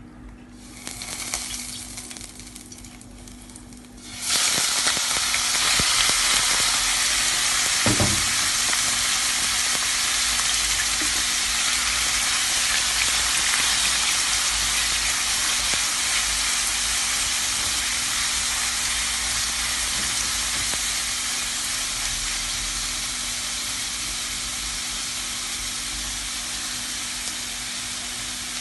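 Small pieces of raw chicken sizzling in oil in a hot non-stick frying pan over high heat. The sizzle starts suddenly about four seconds in as the chicken hits the pan, then holds steady and slowly eases while the pieces are stirred with a silicone spatula.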